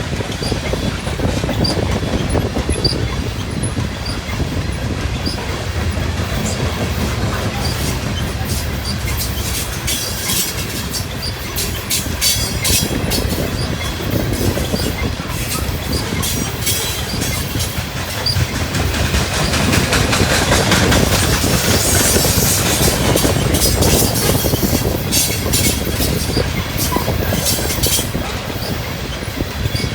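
A train running past on the tracks, its wheels clattering over the rails with a steady low rumble and high-pitched metallic squeals and clicks. The sound swells to its loudest about two-thirds of the way through.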